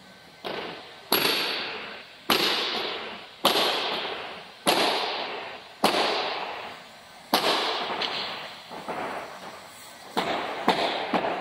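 A series of sharp, loud impacts, about one a second, each one dying away over most of a second in a reverberant room; near the end the hits come quicker and weaker.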